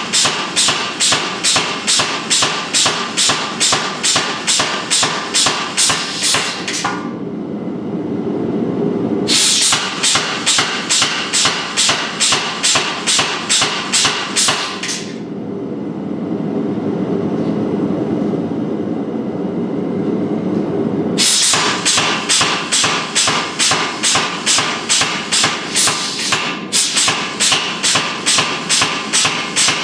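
Blacksmith's hammer striking metal on an anvil in a steady rhythm of about three blows a second, with ringing strikes. The hammering stops twice for a few seconds, leaving a steady rushing noise underneath.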